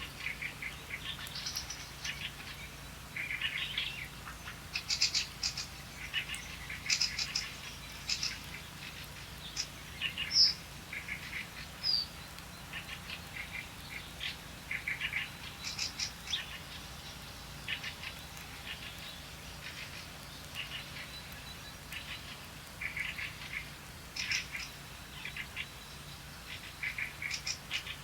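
Small songbirds chirping and calling, with frequent short chirps and an occasional quick whistled slur, over a faint steady low hum.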